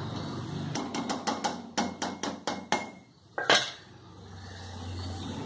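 Metal cooking utensil knocking against a pan about a dozen times in quick succession, roughly five taps a second, then one louder clank.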